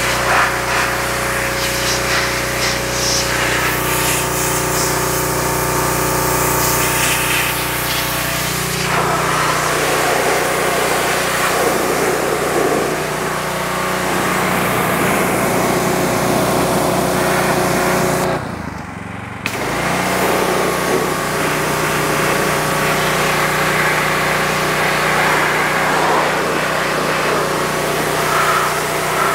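Pressure washer running steadily, its high-pressure water jet spraying and hissing against a metal transmission case. The sound briefly cuts out about two-thirds of the way through.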